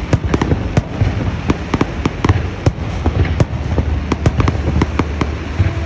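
Many fireworks and firecrackers going off, a rapid irregular string of sharp bangs and crackles over a steady low rumble.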